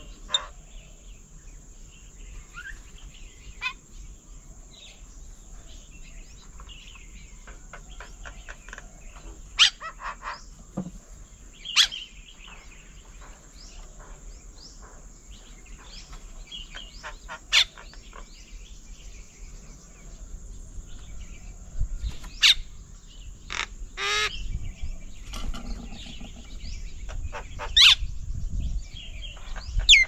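Wild birds calling: loud, sharp whistled calls every few seconds over softer background chirping, with a quick run of repeated falling notes in the second half. A low rumble joins in the last third.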